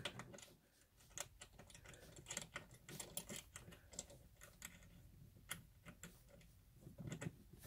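Faint, irregular small clicks and light knocks as a heavy battery cable is handled and fitted against a metal busbar and its studs.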